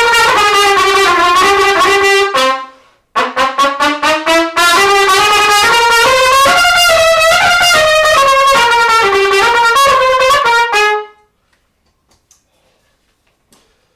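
Trumpet playing two flowing phrases of slurred notes in its middle range. The second phrase opens with a few short tongued notes about three seconds in and stops about eleven seconds in.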